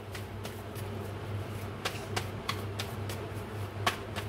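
A deck of tarot cards being shuffled by hand: a string of irregular soft card clicks and slaps, the sharpest a little before the end, over a steady low hum.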